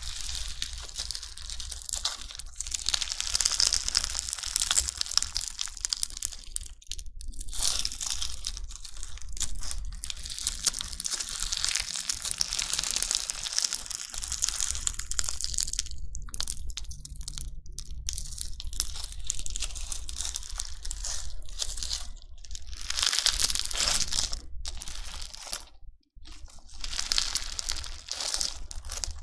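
Crunchy bingsu slime, its tiny plastic beads crackling densely as it is squeezed and worked in the hands, with a few brief pauses.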